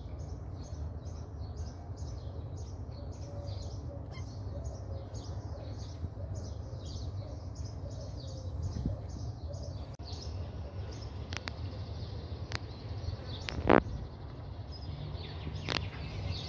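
A small bird chirping rapidly and repeatedly, about three chirps a second, over a steady low rumble. About ten seconds in the chirping breaks off and a few sharp clicks follow, the loudest a little before the end.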